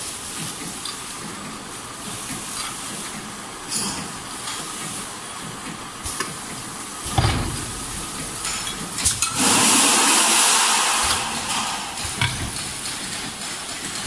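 Multi-nozzle can filling machine running over its conveyor: a steady mechanical noise with scattered clicks, a heavy thump about seven seconds in, then a loud hiss lasting about two seconds.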